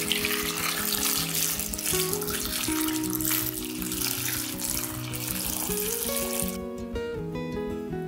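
Water poured from a kettle into a stainless steel pot of peeled potatoes: a steady splashing pour that stops about six and a half seconds in. Soft background music with plucked notes plays throughout.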